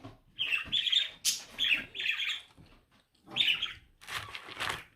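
Close-up mouth sounds of a person chewing food: several short, irregular wet smacks and crunches with brief gaps between them.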